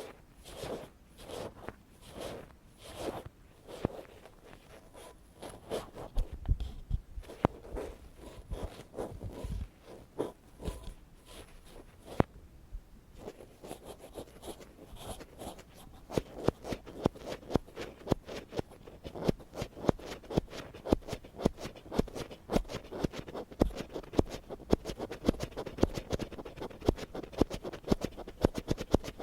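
Ear pick scraping and scratching in ear-cleaning ASMR. It starts with slow, even strokes about twice a second, then from about halfway on turns into rapid, dense scratching.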